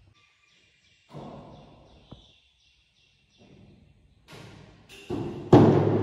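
A few knocks and thumps that ring on in a bare, empty room; the loudest, about five and a half seconds in, is a sharp heavy thud that dies away slowly.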